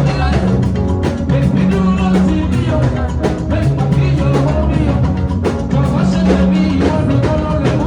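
Loud recorded music with a drum kit and bass line, possibly with singing, played back through a sound system.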